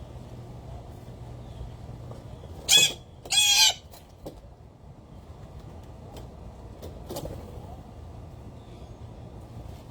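A bird gives two loud calls close together about three seconds in, a short one then a longer one with a wavering pitch, over a steady low background rumble.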